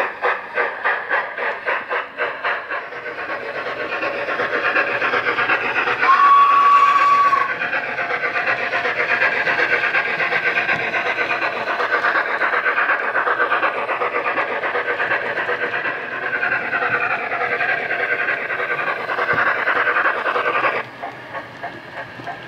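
Steam locomotive sound from the DCC sound decoder in a model Flying Scotsman, played through its two speakers, a bass reflex in the boiler and a megabass in the tender. Separate exhaust chuffs quicken until they run together into a continuous beat. One steady whistle blast sounds about six seconds in, and the sound drops sharply in level near the end.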